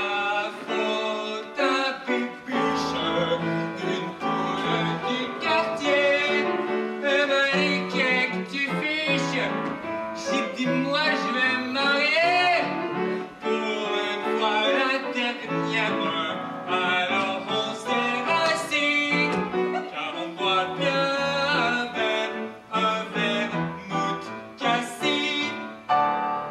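A solo operetta song sung with vibrato over live piano accompaniment.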